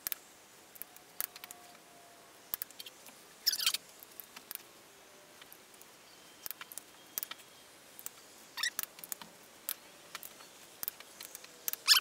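Click-type torque wrench tightening cylinder head bolts: scattered sharp clicks of the ratchet and wrench, with a couple of short rattles, as the bolts are brought up to torque.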